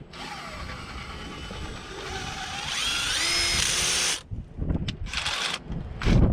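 Power drill driving screws: one long run of about four seconds, its whine rising near the end, then short trigger bursts.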